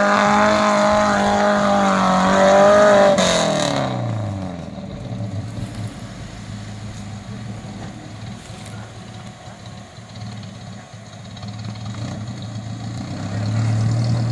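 Off-road buggy engine revving hard and held at high revs for about three seconds. It then falls away to a lower, quieter steady run, and picks up again near the end.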